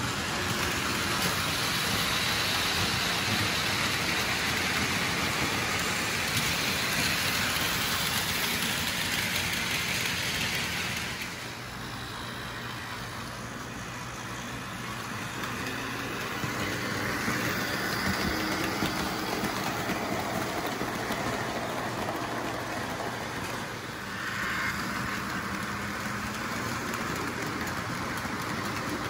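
Märklin HO model trains running on the layout: a steady whirring of the locomotive motors with the rolling of wheels over the track, easing off about eleven seconds in and building again.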